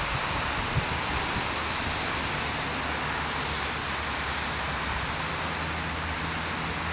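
Steady hiss of heavy wet snowfall on the trees and ground, with the low steady hum of road traffic coming in about two seconds in and growing stronger near the end.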